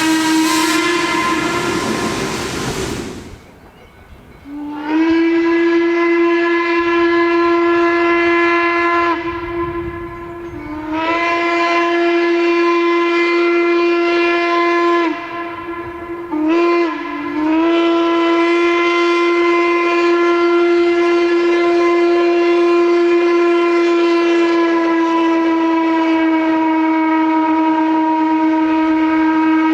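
Norfolk & Western-style hooter steam whistle on Western Maryland 1309, a 2-6-6-2 Mallet steam locomotive, blowing a single deep steady note. A first blast trails off into hiss; then come two long blasts, a short one and a long held one, the long-long-short-long grade-crossing signal.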